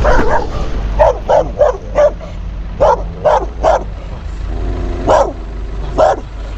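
A tan short-haired dog barking repeatedly at close range, about ten short barks in clusters of two or three with pauses between, over a steady low rumble.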